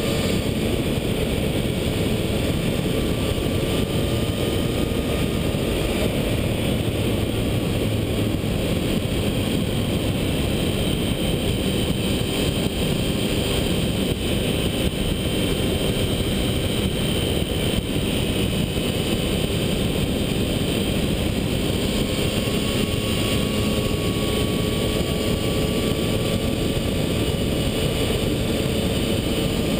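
Triumph Tiger 1050's 1050 cc inline-triple engine running at a steady cruise, under an even rush of wind noise. The engine note holds almost constant pitch, drifting only slightly.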